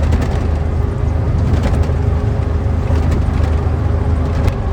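Steady low rumble of a vehicle driving on the road, heard from inside the cab: engine and tyre noise at an even, constant speed.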